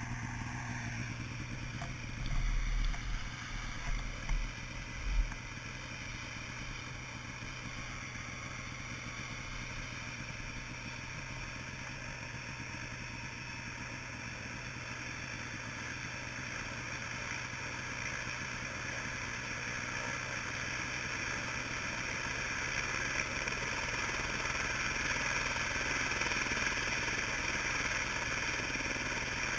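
Aerospatiale AS350BA helicopter's turbine running steadily on the ground, a high whine over a steady hum, growing louder over the last ten seconds. A few low thumps on the microphone about two to five seconds in.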